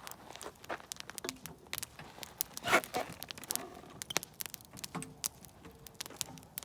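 Wood campfire crackling: irregular sharp snaps and pops, with one louder, longer crackle about three seconds in.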